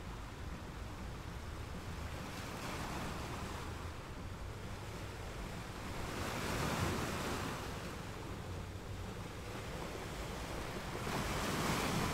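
Ocean surf breaking on a sandy beach: a steady wash of water that swells and fades in three surges, about four seconds apart, as waves break and run up the sand.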